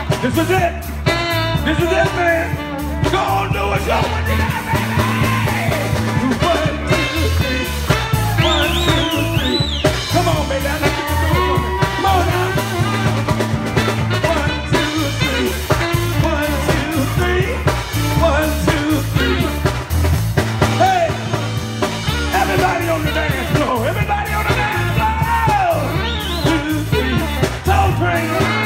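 Live soul band playing an upbeat dance number: a steady drum beat and driving bass line under a lead vocal.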